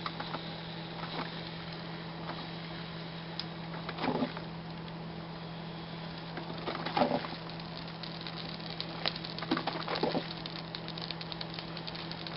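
A drip coffee maker brewing: a steady low hum and hiss, with a few brief gurgles and quick crackling ticks that grow more frequent in the last few seconds.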